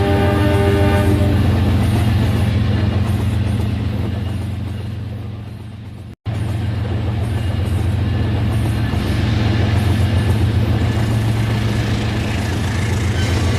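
Rail King toy train running, its electronic horn sound effect ending about a second in, then a steady low motor hum with fast clatter. The sound drops out abruptly just after six seconds and comes back.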